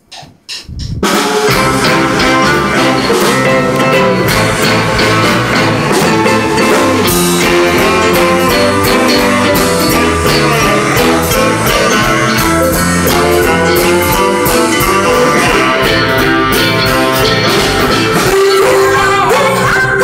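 Live band playing 1960s girl-group style pop on electric guitar and drum kit. The band comes in abruptly about a second in and then plays steadily.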